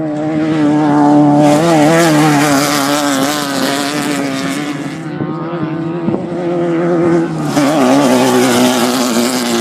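Off-road race vehicle engines running at high revs, their pitch wavering up and down with the throttle. Two swells of rushing noise come as vehicles pass, one about a second and a half in and one near the end.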